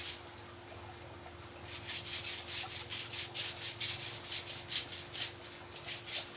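Brisk massage strokes rubbing over skin, a quick even rhythm of about five strokes a second that starts about two seconds in.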